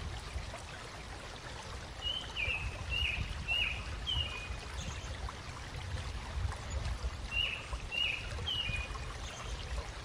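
Running water with a bird calling in short, falling chirps, about two a second: a run of five about two seconds in and three more later on.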